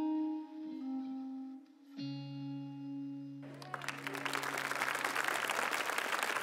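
Closing notes of a ballad played on plucked strings, settling onto a held low chord about two seconds in. Audience applause breaks out about a second later and swells.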